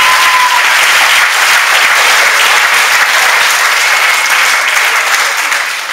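Audience applauding, steady and loud, dying down near the end.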